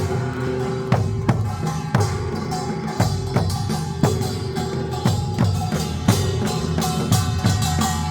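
Korean folk music in performance: drums struck in a steady beat about once a second, with lighter strokes between, over a sustained melodic line.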